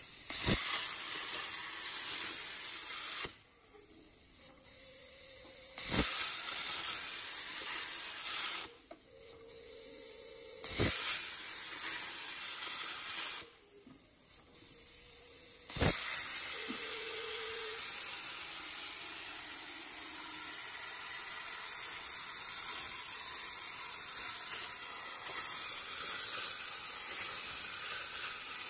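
Hypertherm 200A plasma torch on a CNC cutting table: its hiss comes on sharply with a crack three times, each burst lasting a few seconds with quiet pauses between, then from about halfway through runs continuously as it cuts through metal plate.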